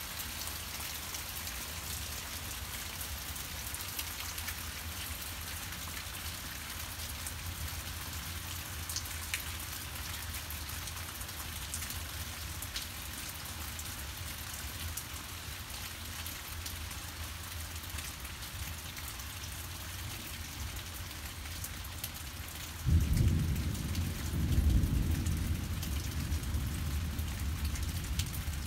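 Steady rain falling in a severe thunderstorm. Near the end, thunder breaks in suddenly and rumbles low for several seconds; this is the loudest sound.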